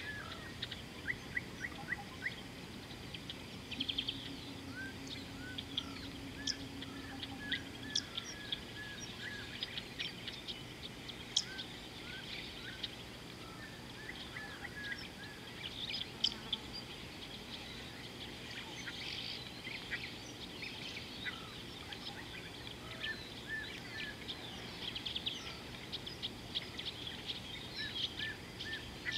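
Wild birds calling all through: many short chirps repeated again and again, with bursts of quick, high twittering trills, over a steady outdoor background hiss.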